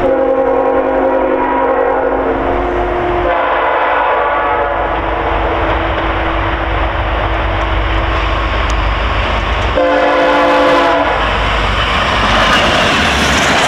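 VIA Rail passenger locomotive's multi-note air horn blowing a long blast whose chord shifts about three seconds in, then a short blast about ten seconds in, over the steady rumble of the approaching train. Near the end the rumble turns to the rushing and clatter of locomotives and coaches passing close by.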